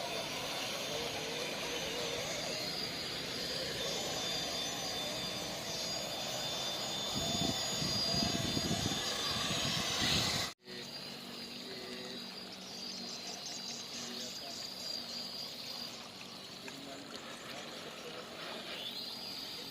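Radio-controlled 4x4 crawler's electric motor and gearbox whining, its pitch wavering with the throttle. The sound cuts off abruptly about halfway through, then a quieter whine and high tones continue.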